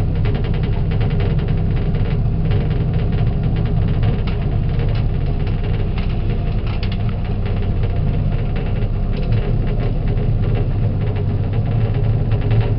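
Motor boat's engine running steadily with a deep hum.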